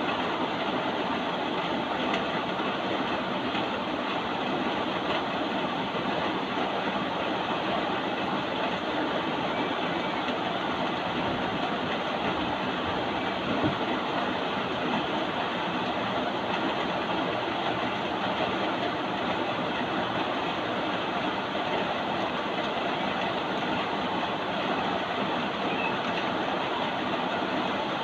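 Steady rain, an even unbroken hiss.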